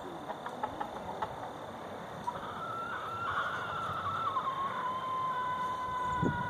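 Rooster crowing: one long drawn-out call that starts a little over two seconds in, holds its pitch and drops slightly partway through.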